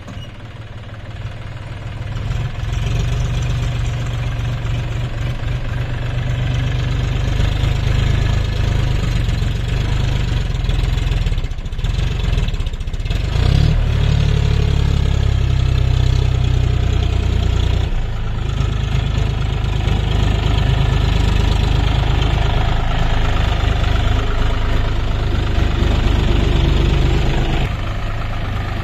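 John Deere 5050D tractor's three-cylinder diesel engine running steadily while hauling a fully loaded trailer of potato sacks, a deep low rumble that grows louder over the first few seconds.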